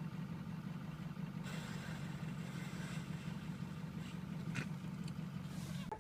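A steady low mechanical hum, like a running engine, with a higher hiss joining about a second and a half in.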